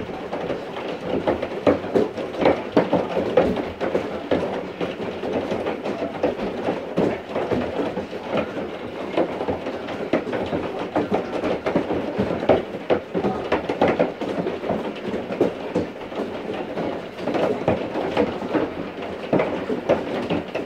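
Heavy thunderstorm rain beating down, a dense, irregular crackle of drops striking nearby surfaces over a steady hiss.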